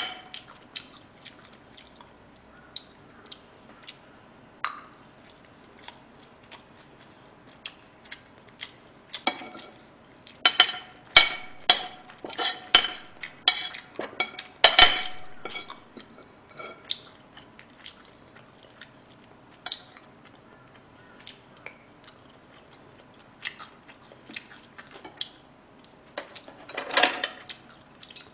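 Metal spoon clinking and scraping on a ceramic plate while scooping fried rice, in scattered clicks with a run of louder ringing clinks midway. A short rustle comes near the end.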